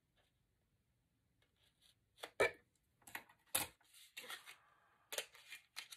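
Handling of a small cardboard product box after its seal has been cut with scissors: two sharp knocks about a second apart, then rustling and scraping as the box is opened.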